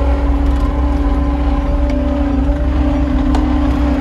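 Skid steer loader's engine running steadily at working revs, heard from inside the cab: a constant low rumble under a steady droning tone.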